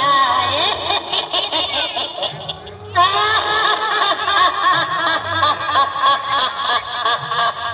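Loud laughter, with wavering, gliding pitch, that drops away briefly about two and a half seconds in, then starts again abruptly at full strength.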